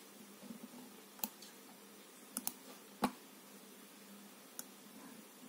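A few faint, sharp computer mouse clicks, spaced out, with a quick double click about two and a half seconds in.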